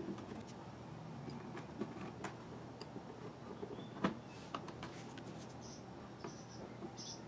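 Hands handling a Nissan Skyline R33 GT-R plastic dashboard and its airbag lid: scattered light knocks and rubbing, with a sharper knock about four seconds in and a few short high squeaks near the end.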